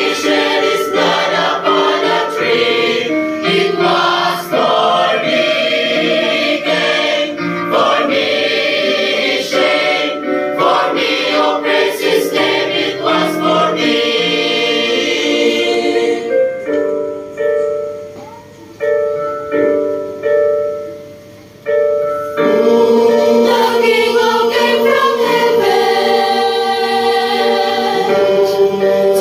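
Mixed youth choir singing a gospel hymn in parts. The sound thins to a softer passage of short held notes in the middle. The full choir then returns on long, sustained chords.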